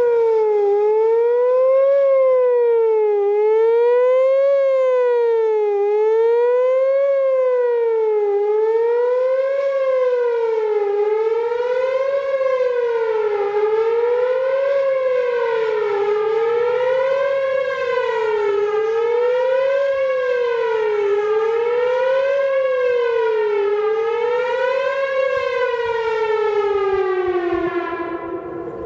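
Whelen WPS 4004 electronic warning siren, heard up close, sounding the wavering attack signal: its 560 Hz tone sweeps up and down about every two and a half seconds. Near the end the pitch slides down and the sound fades as the cycle ends.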